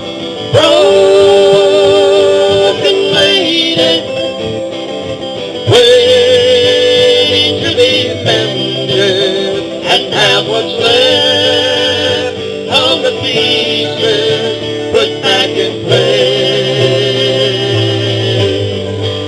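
Live acoustic country band playing an instrumental break: plucked and strummed guitar accompaniment under a lead melody of long, wavering held notes.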